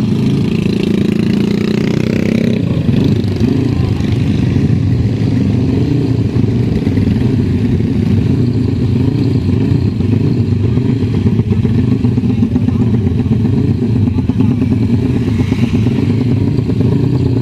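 Many motorcycle engines running together, idling with occasional revs from the bikes in the crowd, loud and continuous. A little extra engine noise stands out in the first couple of seconds.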